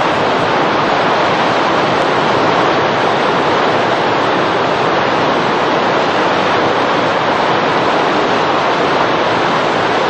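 Muddy flash-flood water after heavy rain rushing and churning over rocks, a loud, steady rushing noise.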